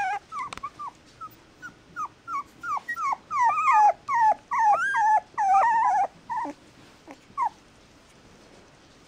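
Young mixed-breed puppies whimpering: a run of short, high cries that each fall in pitch, coming faster and louder in the middle and stopping about seven and a half seconds in.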